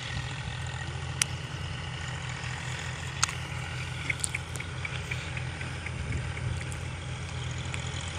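Tractor's diesel engine running with a steady low drone as it hauls two trailers loaded with sugarcane. Two sharp clicks stand out about a second in and about three seconds in, followed by a short run of faint high ticks.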